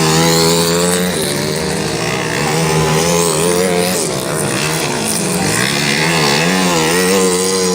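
Motorcycle engine running loudly. Its pitch holds steady at first, then rises and falls several times in the second half as the throttle is worked.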